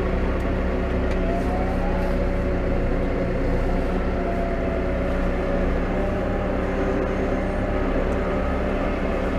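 New Holland T5.120 tractor's diesel engine running steadily, with a short rising whine about one and a half seconds in.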